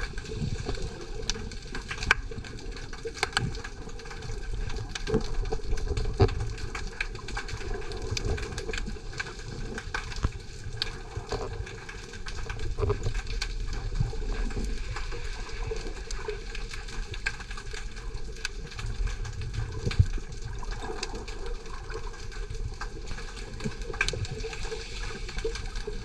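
Underwater ambience heard through a camera's waterproof housing: a steady muffled watery rush and low rumble, with scattered sharp clicks and crackles throughout.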